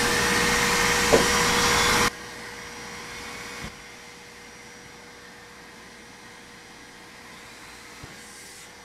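Handheld cordless vacuum with a hose attachment running steadily, sucking cutting debris out of a freshly cut vent opening in the RV wall, with a knock about a second in. It is switched off about two seconds in, and a much fainter steady hum carries on after it.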